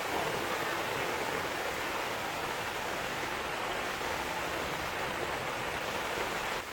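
Steady rain falling, an even rushing hiss with no let-up.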